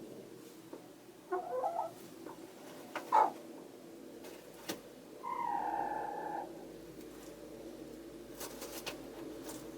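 Hens calling: a few short clucks about a second in, a sharp louder squawk about three seconds in, and a drawn-out call lasting over a second around the middle, over a steady low hum.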